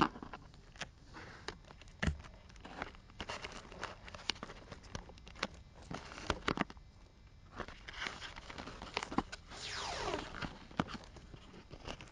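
Handling noise picked up by a camera mounted on an RC model plane: scattered clicks, knocks and rustling. Near the end there is a brief falling whine.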